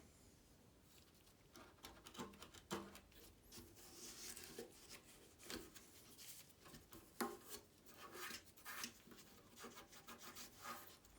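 Faint handling noises as the fuel pump and its seal are worked on the tank: light rubbing and scattered small clicks and knocks, the sharpest about three seconds in and about seven seconds in.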